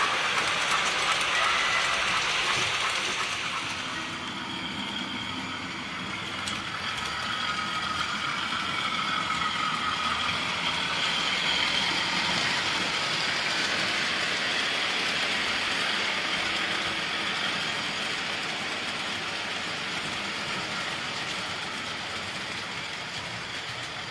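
OO gauge model trains running on the layout's track: a steady rolling rattle of small wheels on rail joints with the whirr of the locomotive motors, easing off a little about four seconds in.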